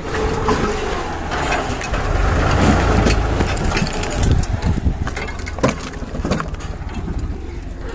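Farmtrac tractor running under load as it hauls a trailer full of stones over a rocky track, with stones crunching and knocking under the wheels a few times and wind rumbling on the microphone.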